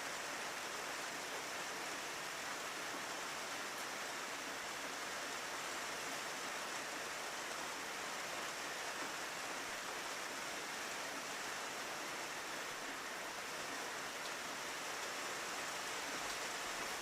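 Steady rain falling, an even hiss without distinct drops or thunder.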